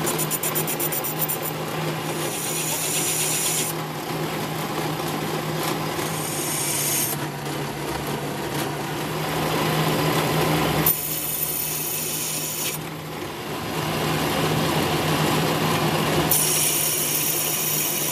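Metal lathe running with a steady hum while its cutting tool screw-cuts a thread on a steel sleeve; a high scraping cutting noise comes in with each pass, four times, each spell lasting one to three seconds.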